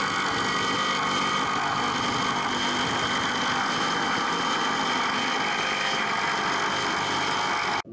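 Corded jigsaw running steadily as it cuts a curve through a large board, a steady high whine over a noisy hiss. It cuts off abruptly near the end.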